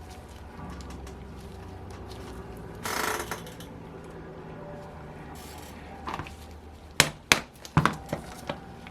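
Bench work on a model engine teardown: a brief scraping rustle about three seconds in, then a quick series of sharp clicks and knocks near the end as tools and parts are handled.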